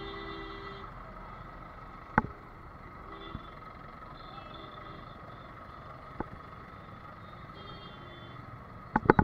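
Traffic noise in a jammed road heard from a motorcycle moving among trucks and cars. A vehicle horn sounds at the start and stops about a second in, fainter horns follow, and a few sharp knocks come through, the loudest a quick cluster near the end.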